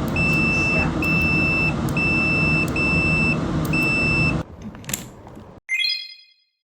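Car's electronic warning beeper sounding a steady high beep about once a second over a low engine rumble. Both cut off suddenly about four and a half seconds in, and a short electronic chime follows.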